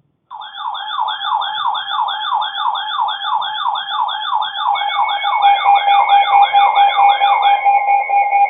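Electronic alert siren: a loud tone sweeping rapidly up and down, about two and a half times a second. Steady tones join it about halfway through, and the sweep stops near the end, leaving only the steady tones.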